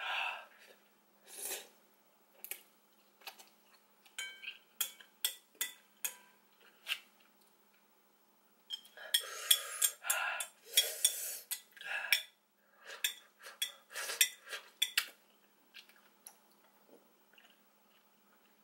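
Wooden chopsticks tapping and scraping against a white ceramic bowl while eating noodles, a series of short separate clicks and clinks. Louder stretches of noisy mouth sounds from the eater come about nine and thirteen seconds in.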